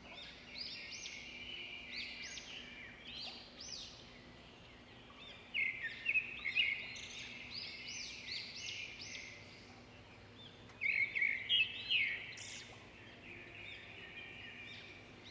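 Many small birds chirping and twittering together in quick, overlapping high calls, with louder flurries about five to six seconds in and again about eleven seconds in.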